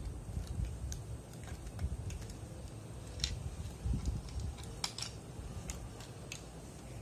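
Light plastic clicks and rattles of a Lego brick rifle model being turned over in the hands, about nine scattered sharp clicks over a low rumble of handling noise.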